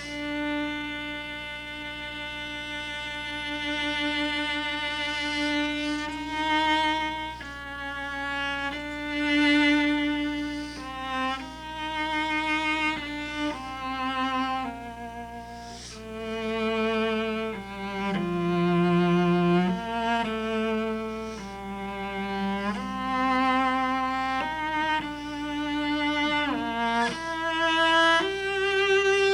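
Solo cello playing a slow, singing melody of long sustained notes with vibrato, each note drawn out on the bow.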